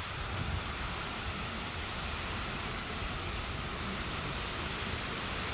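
Strong storm wind blowing steadily in a hurricane: an even rushing noise with a low rumble of wind buffeting the microphone.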